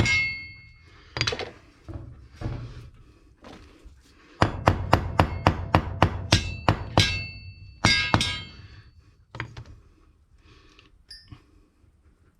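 Hammer blows on a steel Dynabolt anchor being driven into a drilled hole in the concrete slab, each strike clanging with a metallic ring. A single blow at the start and another about a second in, then a quick run of about nine blows around the middle and a couple more after; the bolt is stuck on something hard at the bottom of the hole.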